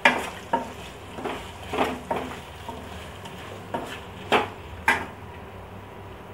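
Steel spoon knocking and scraping against a stainless steel kadhai while stirring frying gram-flour dumplings, about eight irregular clinks over the first five seconds.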